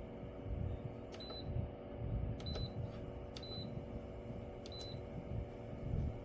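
Four short high beeps, about a second apart, each with the click of a button press: the control panel of a mini evaporative air cooler as its settings are stepped through. A steady fan hum runs underneath.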